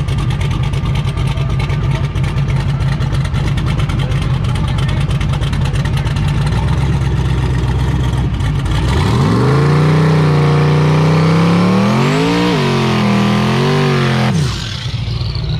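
Twin-turbocharged drag car's engine idling with a steady rumble, then revving up sharply about nine seconds in and held at high revs, the pitch wavering, in a burnout. The revs cut off suddenly near the end.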